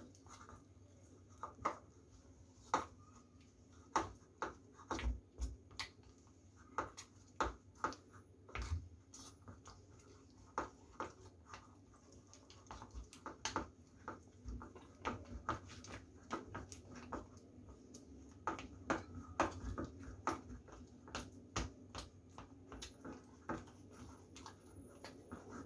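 Chopsticks stirring and beating minced meat paste in a ceramic bowl: irregular clicks and taps of the sticks against the bowl with wet slaps of the paste, coming faster and closer together in the second half.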